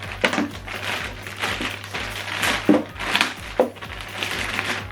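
Plastic packaging rustling and crinkling in irregular bursts, with small clicks, as accessories are unpacked.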